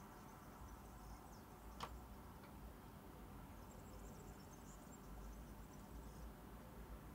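Near silence: quiet room tone with a low steady hum and one faint click a little under two seconds in.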